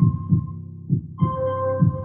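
Slow meditation music: a steady low drone under a paired, heartbeat-like low thumping pulse, with a ringing bell-like tone struck once a little after a second in.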